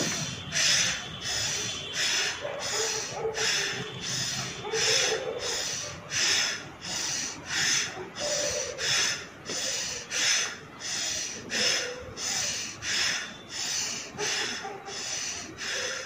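Bhastrika pranayama, the yogic bellows breath: forceful in-and-out breaths through the nose in a steady rhythm of about three every two seconds.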